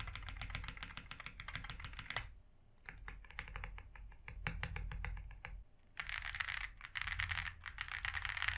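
Typing on a Meletrix Zoom98 full-size aluminium custom mechanical keyboard, with Snow Grape switches in a gasket-mounted polycarbonate plate and PE foam under the PCB for a poppy sound. It starts with a fast run of keystrokes and pauses briefly about two seconds in. Slower separate keystrokes follow, then three quick bursts of rapid typing near the end.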